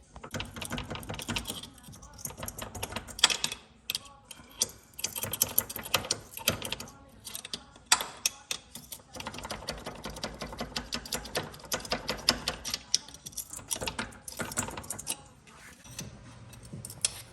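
Quick runs of light metal-on-metal tapping and clinking, several strikes a second in irregular bursts, as a small crowbar works a part off an ATV's front differential.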